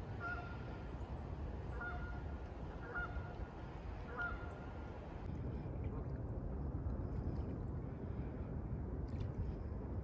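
Geese honking, four short calls in the first few seconds, over a steady low rumble of wind on the microphone.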